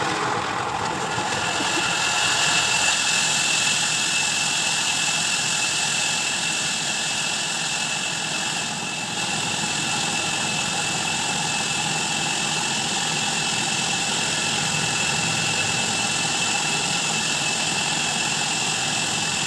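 Sawmill band saw running steadily: a constant high whine over even mechanical noise.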